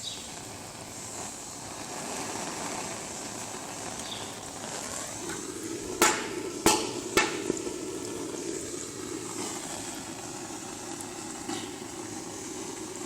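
Homemade HHO generator and its small oxyhydrogen torch running, a steady hissing and fizzing of gas and bubbling electrolyte, with three sharp snaps about six to seven seconds in.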